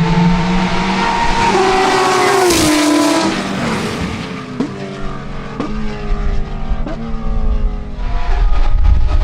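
Porsche 911 GT America race car's 4.0-litre flat-six running hard at high revs. Its pitch falls as it goes past about three seconds in, then jumps sharply about once a second as the sequential gearbox changes gear, before the engine gets louder again near the end.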